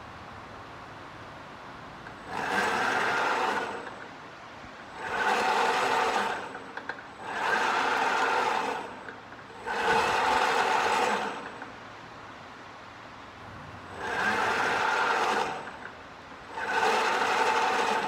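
Remote-controlled strand pusher running in six short bursts of about a second and a half each, a mechanical whir as it drives steel prestressing strand through, stopping in between.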